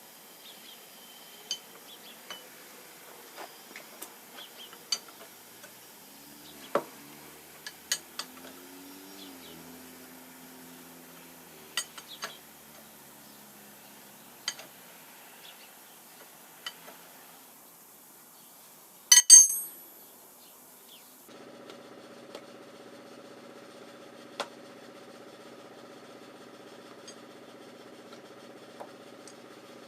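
Steel tools and machine parts clinking and knocking now and then while a shaper is taken apart by hand, with one louder metal clatter about two-thirds of the way in. Soon after, a steady motor hum starts and runs on.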